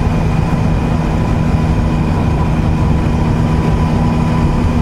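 Triumph Sprint ST1050's three-cylinder engine running steadily at cruising speed, heard from a helmet camera with a steady rush of wind and road noise.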